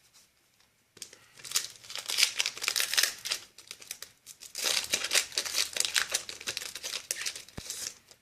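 Foil Yu-Gi-Oh booster pack wrapper crinkling and being torn open, in two spells of crackly rustling with a short pause between.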